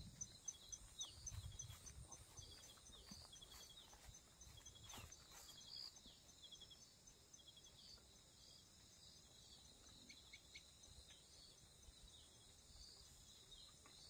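Faint open-air nature sounds: an insect chirping in a steady, rapid, high pulse, with a few short, high bird chirps, mostly in the first half.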